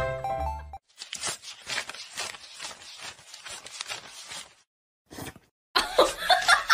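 Paper banknotes being fanned and flicked by hand: a fast run of crisp rustles and crackles that stops about four and a half seconds in. It opens with the last moment of background music, and near the end a louder run of sharp sounds begins.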